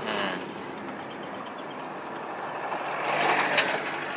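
Steady road and engine noise heard from inside a moving car, swelling into a louder rush about three seconds in.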